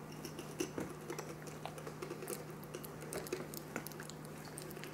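Toddler chewing banana: faint, irregular wet clicks and smacks from the mouth, over a faint steady hum.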